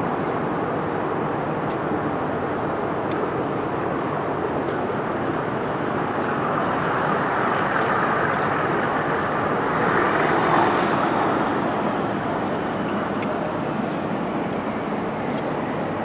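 A steady distant rumble that swells to its loudest about ten seconds in and then fades again, as of a vehicle passing some way off.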